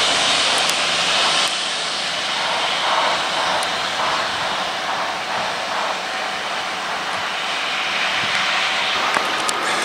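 Railhead treatment train passing, its high-pressure water jets blasting the rails with a steady loud hiss over the running of its Class 66 diesel locomotives. The sound eases a little about one and a half seconds in as the train draws away.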